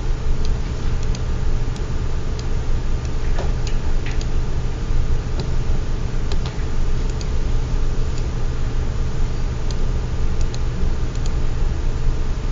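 Scattered, irregular clicks, typical of a computer mouse and keyboard being worked, over a steady low hum and hiss.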